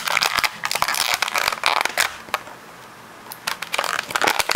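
Clear plastic blister packaging crinkling and crackling in rapid irregular clicks as an action figure is worked out of it by hand, easing off for about a second just past halfway before starting again.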